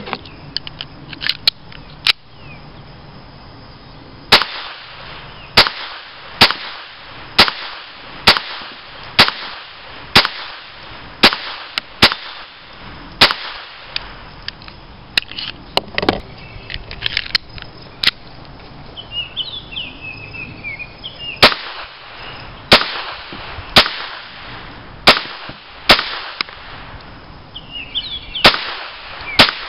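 Walther P22 .22 LR semi-automatic pistol being fired in steady single shots, about one a second, with a pause of a few seconds past the middle. A bird chirps in the pause and again near the end.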